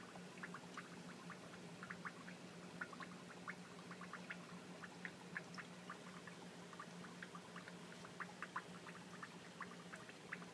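Aquarium filter running faintly: a low steady hum under irregular small water drips and bubble pops, several a second.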